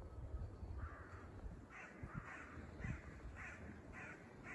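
An animal calling in a quick series of about seven short, raspy calls, roughly two a second, starting about a second in.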